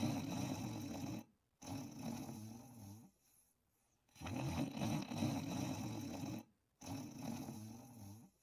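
Snoring in slow, regular breaths: twice a rasping snore of about two and a half seconds is followed by a shorter one, with short pauses between breaths.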